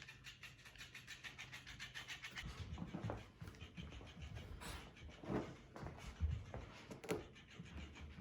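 Robotic flapping-fish cat toy flapping its tail with a fast, even ticking over a low motor hum, which stops about two and a half seconds in. After that come irregular thumps and rubbing as the dog mouths and knocks the toy about.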